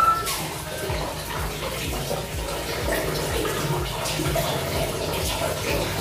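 Water splashing and running as a small wet puppy is washed and scrubbed by hand on a tiled bathroom floor.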